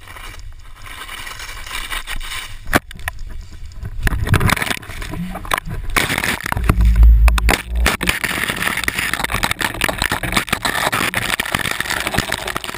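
Wind rushing over an action camera's microphone and skis hissing and scraping through powder snow, building over the first few seconds, with heavy low wind buffeting about seven seconds in and a sharp knock near three seconds.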